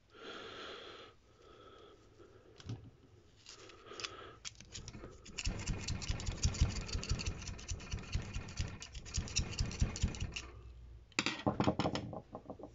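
Screwdriver tamping and twisting brass wool down into a small brass pipe fitting: a rapid, rattling scrape of metal on metal that runs for several seconds in the middle, then a few sharp clicks near the end as the screwdriver is set down on the desk.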